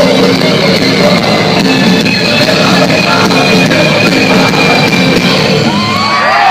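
Industrial metal band playing live and loud, guitars over drums; near the end a high note slides upward and holds.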